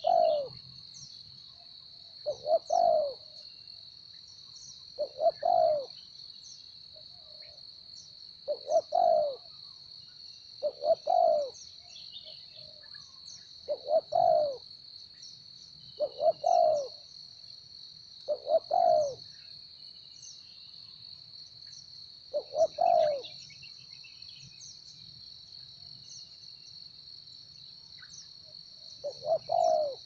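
Spotted dove cooing over and over, about every two to three seconds: each call is a quick note or two followed by a longer coo. A steady high-pitched insect drone runs underneath throughout.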